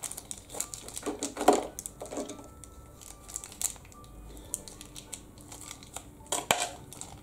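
A small foil blind-bag wrapper crinkling and tearing as it is pulled open and handled. It comes in short, irregular bursts, and the loudest is about a second and a half in.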